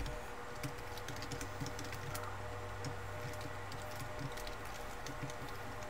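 Computer keyboard being typed on: light, irregular key clicks over a steady low hum.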